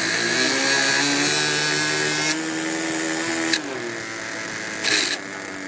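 Engine of a Mojo 60 radio-control aerobatic model airplane flying overhead at high power, its pitch shifting as it manoeuvres. The note slides lower and quieter a little after halfway. A short burst of hiss comes about five seconds in.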